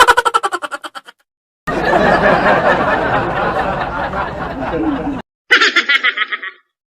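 Laughter sound effects played back to back, each cut off abruptly: a short, quick laugh that fades out, then about three and a half seconds of denser laughter, then another short, rapid snicker.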